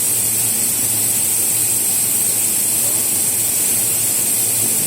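Machining center running: a steady, loud high hiss with a low hum underneath.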